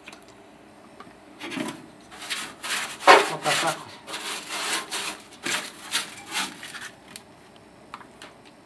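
Paintbrush scrubbing zinc rust converter onto a rusty steel car floor pan. The brush makes a run of quick, rough strokes, about a dozen, starting about a second and a half in and stopping about a second before the end.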